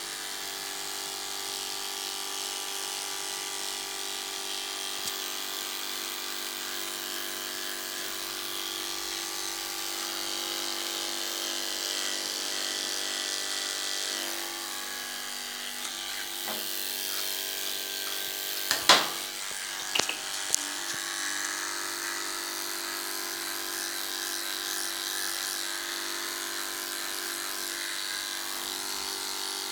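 Electric dog-grooming clipper running steadily while it is drawn down through a schnauzer's coat. A couple of sharp knocks come about two-thirds of the way through.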